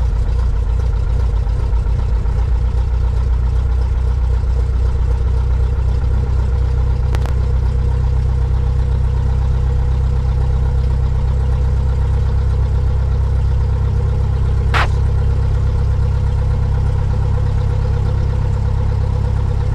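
Cessna 172's piston engine and propeller running steadily at idle, heard from inside the cockpit. Two short sharp clicks come through over it, about seven and fifteen seconds in.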